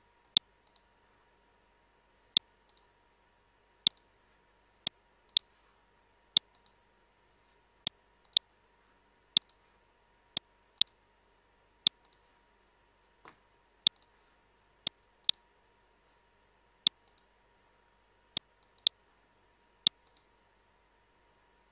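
Computer mouse button clicking, about nineteen separate sharp clicks at irregular gaps of half a second to two seconds, some in quick pairs, over a faint steady hum.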